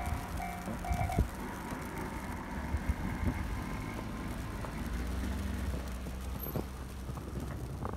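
Railway level-crossing warning bell ringing in quick repeats, stopping about a second in, then a car passing slowly on the snow-covered road with a low engine rumble that grows near the end.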